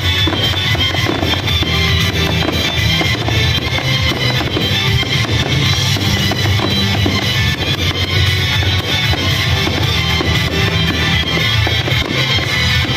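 Loud rock music with a driving drum kit and guitar.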